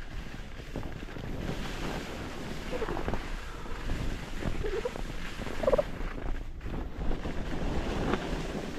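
Wind buffeting the microphone of a body-worn camera during a downhill ski run, mixed with the steady hiss and scrape of carving skis over chopped-up snow.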